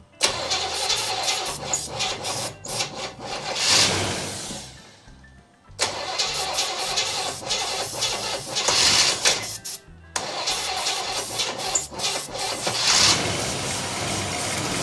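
The 1965 El Camino's engine being cranked by its starter in three long attempts of roughly four to six seconds each, with short pauses between, never catching: fuel is not getting up to the carburetor.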